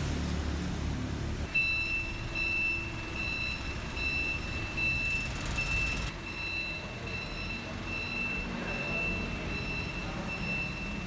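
Vehicle back-up alarm beeping steadily, about two high beeps a second, starting about a second and a half in, over the low rumble of an engine running.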